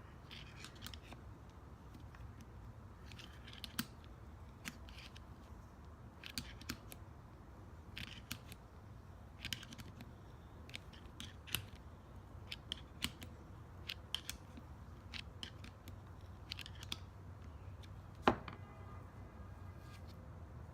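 Light, irregular clicks and ticks of hand work on a rear brake caliper piston and its rubber dust boot, with one sharper click near the end.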